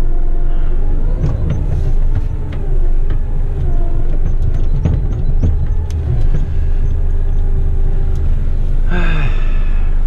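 Heavy rigid truck's diesel engine running on the road, heard from inside the cab as a steady low rumble with light rattles and clicks. About nine seconds in, a brief tone falls in pitch.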